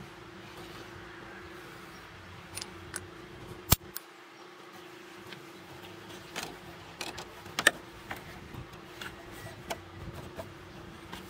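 Metal hand tools, a socket and extension, clinking and knocking against parts in a car engine bay: scattered sharp clicks, the loudest about four seconds in and another near eight seconds, over a steady faint hum.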